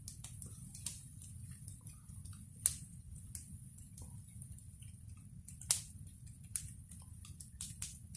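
Wood fire crackling: irregular sharp pops and snaps over a steady low rumble, with the two loudest pops about a third and two-thirds of the way in.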